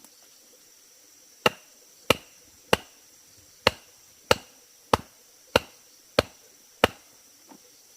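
A blade chopping bamboo in nine sharp, even strokes, about one every 0.6 seconds, with one beat skipped after the third. Insects buzz steadily in the background.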